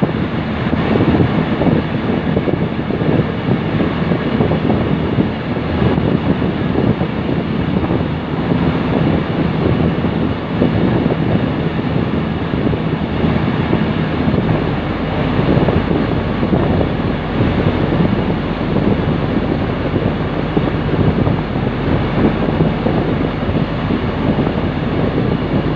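Wind buffeting the microphone over the steady running noise of a rail maintenance vehicle travelling along the track. A low rumble grows stronger about halfway through.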